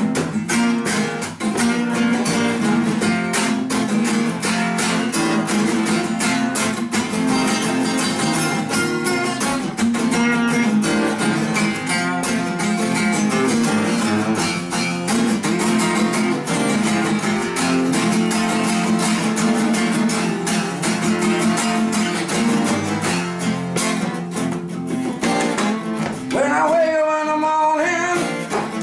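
Two acoustic guitars strummed together in a steady, driving rhythm, an instrumental stretch of a live song. Near the end a man's voice comes in singing over the guitars.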